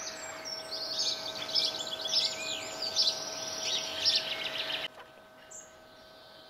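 Small songbirds chirping and twittering in quick, busy calls, cutting off abruptly about five seconds in to a faint background.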